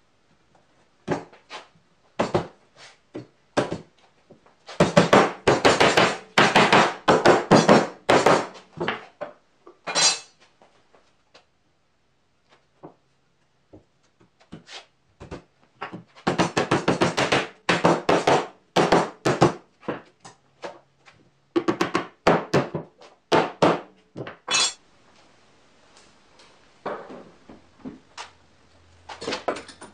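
Wooden mallet knocking tenoned rungs home into the double mortises of a wooden shelf frame, wood on wood. A few single knocks are followed by three runs of quick, rapid blows, and there are softer knocks near the end.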